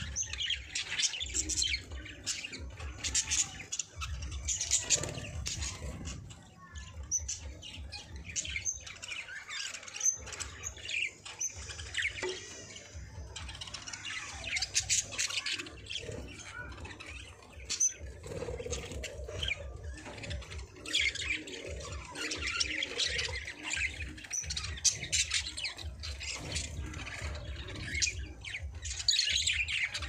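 Budgerigars chirping and warbling in rapid, varied bursts, with quieter stretches between.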